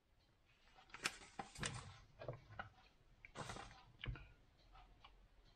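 Quiet handling sounds: a scatter of light clicks and knocks with a brief rustle, as a plastic packet of bay leaves is set aside and a small glass spice jar is picked up.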